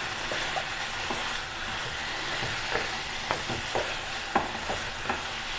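Chicken pieces sizzling in oil in a wide pan over high flame, a steady sizzle with scattered clicks and scrapes of the spoon against the pan as it is stirred. The frying is at the drying stage, where the moisture cooks off and the chicken firms up.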